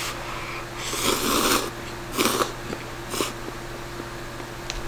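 A person slurping instant cup noodles off chopsticks: four slurps, the longest about a second in, the others short.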